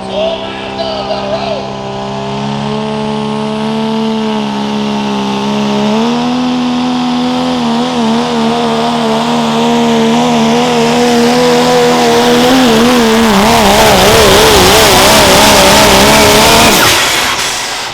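Modified diesel pickup pulling a sled, its engine running hard at high rpm under load. The pitch holds fairly steady, then wavers up and down as the truck bounces along the track. The sound grows louder with a rising hiss, then cuts off sharply near the end as the driver lets off.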